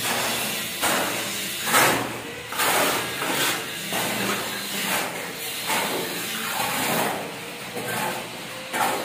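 Mason's trowel scooping and scraping wet concrete into the slab formwork: a rough swishing scrape about once a second, unevenly spaced.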